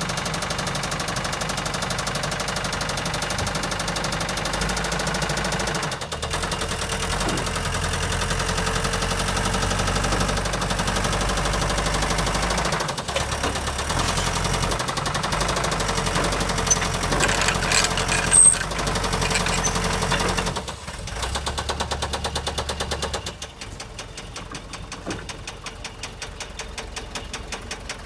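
Allis-Chalmers lift truck's four-cylinder turbo diesel engine running, its speed rising and falling several times as the forklift is driven. There is a brief high squeak about two-thirds of the way in, and the engine settles to a quieter idle near the end.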